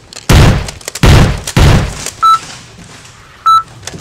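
Video-game-style sound effects dubbed over the footage: three loud booming blasts in quick succession in the first two seconds, each trailing off, then two short electronic beeps, one a little past two seconds in and one near the end.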